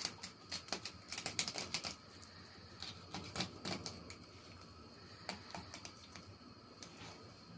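Knife filleting a raw salmon on a plastic cutting board: a quick run of faint crackling clicks for the first two seconds or so, then scattered single clicks as the blade works along the bones.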